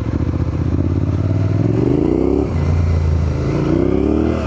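Suzuki V-Strom 800DE's parallel-twin engine accelerating under way, revving up twice with a gear change about two and a half seconds in and another near the end.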